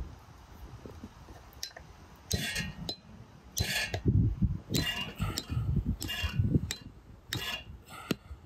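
A hammer striking the spine of a large knife again and again to drive it through a huge catfish behind the head: sharp metallic clinks that ring briefly, each with a dull thud from the blade biting into the fish, about a dozen blows at roughly one a second, heavier from about two seconds in.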